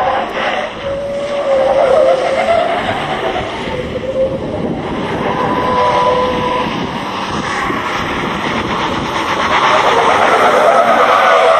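MAN tractor unit drifting: its diesel engine running hard while the rear tyres squeal on the tarmac. The squeal wavers in pitch and is loudest near the end.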